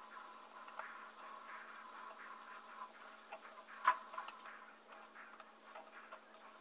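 Faint hiss with scattered light clicks from a plastic dropper being handled against a pregnancy test cassette and sample cup, and one sharp click about four seconds in.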